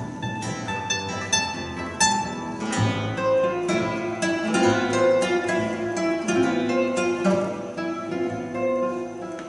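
Live acoustic music from two classical guitars and a double bass: a flow of plucked guitar notes, with low bass notes joining about three seconds in.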